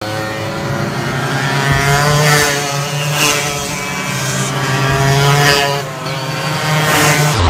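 Racing go-kart engines revving up and down as karts take a chicane, the engine note rising and falling several times as one kart after another passes.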